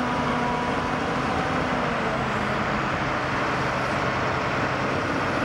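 Diesel engines of dump trucks and a bulldozer running steadily: a dense mechanical noise with an engine hum beneath it.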